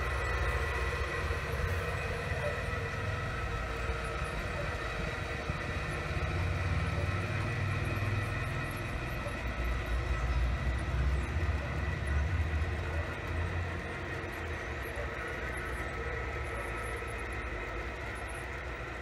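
G scale model coal train, hauled by three Dash 9 locomotives, running on track with a steady hum and a few held tones, easing off slightly near the end as it moves away. Wind rumbles on the microphone underneath.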